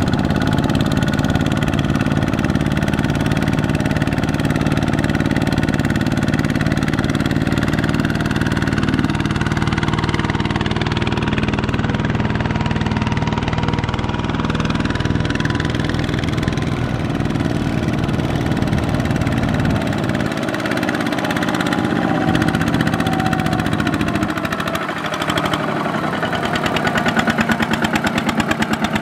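Two-wheel walking tractor's single-cylinder diesel engine running steadily under load as it hauls a loaded trailer through deep paddy mud, its firing pulse growing stronger near the end.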